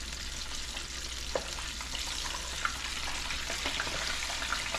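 Breaded, nearly frozen oysters deep-frying in 350-degree peanut oil: a steady sizzle with scattered crackling pops.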